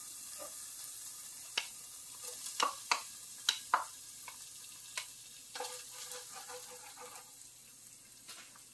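Diced mirepoix vegetables going into a little hot oil in a stainless steel skillet and starting to sizzle softly, with scattered sharp pops and clicks as the pieces land and spread.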